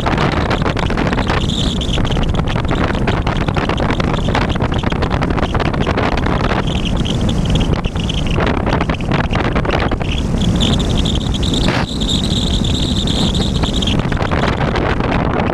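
Wind buffeting the microphone of a camera on a Bixler RC plane in flight, with the high whine of the plane's electric motor and propeller coming and going in stretches, the longest from about ten to fourteen seconds in.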